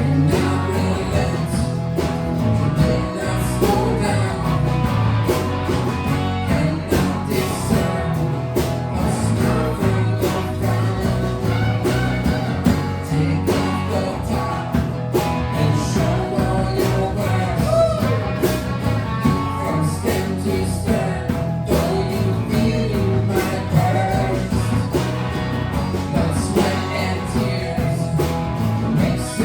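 A live band playing a rock-and-roll original, with guitar prominent over a steady beat.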